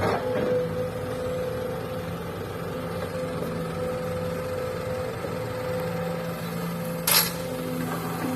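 Diesel engines of an excavator and a dump truck running steadily during loading. There is a short, sharp knock about seven seconds in and a smaller one right at the start.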